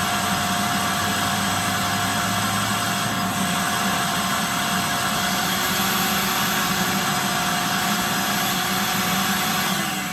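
Vacuum cleaner running steadily with a constant whine, switched off near the end, its motor winding down with a falling pitch.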